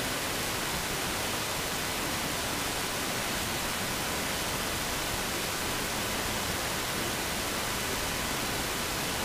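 Steady, even hiss like static, unchanging in level, with no other sound.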